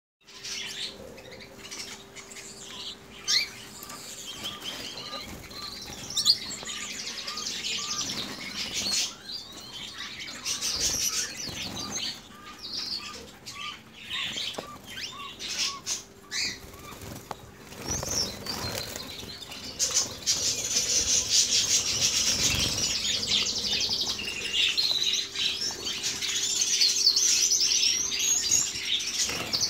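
Caged red mosaic canaries fluttering their wings and hopping about, with a steady chorus of chirps. About two-thirds of the way in the high trilling song grows louder and denser.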